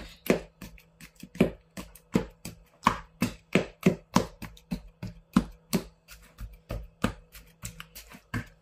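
Kitchen knife jabbing over and over into raw chicken thighs in a plastic bowl: a quick run of sharp knocks, about two to three a second.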